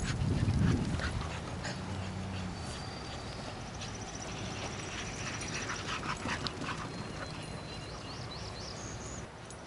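Two pit bulls at play, with dog sounds and scattered taps and thumps. A thin, high, steady tone comes and goes in the middle.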